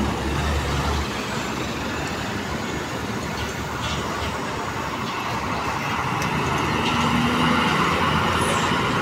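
Heavy diesel trucks passing close by one after another, engines running and tyres on the road. A deep engine drone drops away about a second in, and the noise builds again near the end as the next truck comes up.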